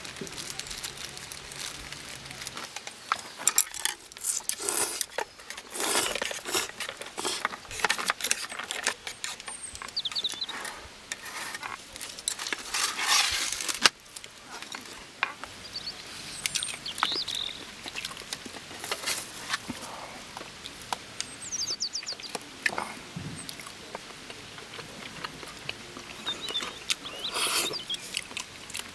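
Irregular rustling, tapping and clicking, as of things being handled, with a few short high chirps scattered through.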